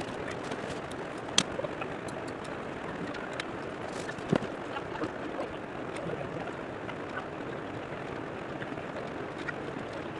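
Steady rushing of river water, with a few sharp clicks, the loudest about one and a half and four and a half seconds in.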